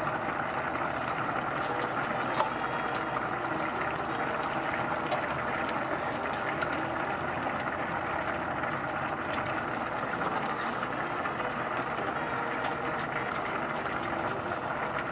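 Vegetable stock and rice simmering in a wide stainless steel paella pan, a steady bubbling hiss. A few light ticks and one sharp tap about two seconds in come as prawns are set into the pan by hand.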